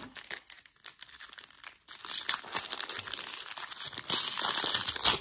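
Foil wrapper of a 1991 Pro Set Platinum football card pack crinkling as the pack is pulled from the box and torn open. The crackling gets louder and denser about two seconds in.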